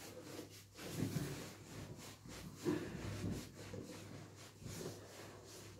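A towel rubbing a wet dog's fur dry, in irregular strokes.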